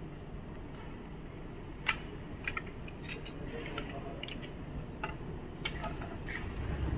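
Scattered light clicks and taps of a tape measure and marker being handled against a wall, over a low steady rumble.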